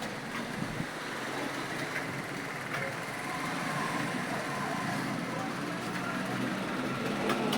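Computer keyboard typing, faint scattered key clicks under a steady background hum of noise that is most like distant road traffic.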